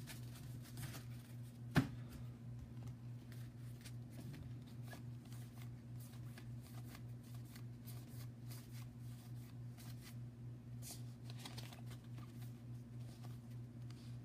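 Baseball cards being flipped and slid through the hands one after another: soft, irregular scraping and flicking of card stock over a steady low hum, with one sharper click just under two seconds in.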